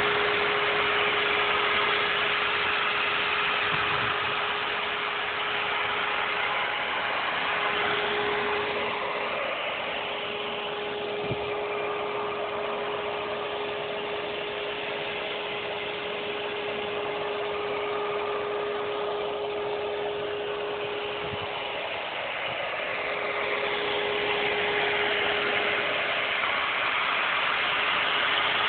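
Spindigger post-installation power unit running steadily with a constant droning tone, turning a helical ground-screw post down into the soil; the sound eases slightly in the middle.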